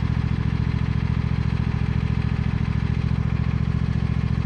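Small lawnmower engine idling steadily with an even, fast-pulsing drone.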